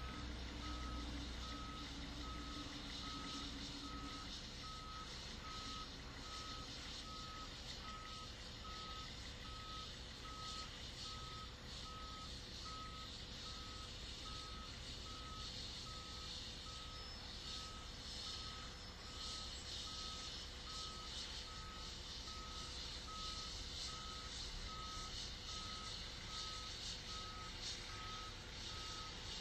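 Fire engine's reverse alarm beeping steadily about once a second as the apparatus backs up, over the low running of its engine.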